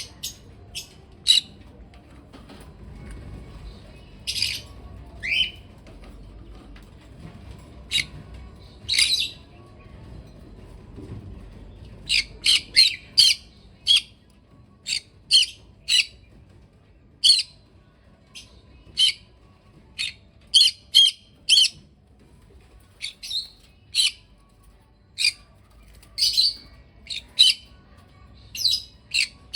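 Small pet parrots calling with short, shrill chirps and squawks. The calls are few and spaced at first, then come thick and fast from about halfway through.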